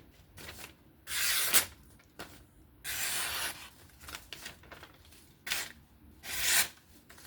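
A freshly sharpened folding-knife edge slicing through paper in three short swishing strokes, showing off a keen edge.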